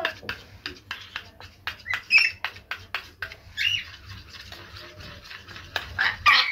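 Metal spoon clinking and scraping against a small stainless-steel bowl, about four quick strokes a second, while stirring hand-feeding formula into warm water to work out the lumps. Birds squawk briefly a few times, about two seconds in, around the middle and near the end.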